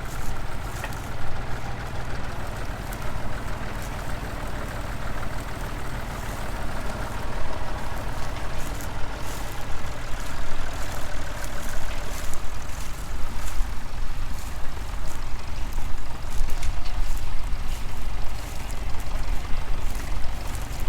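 Tractor engine running steadily, with scattered light clicks in the second half.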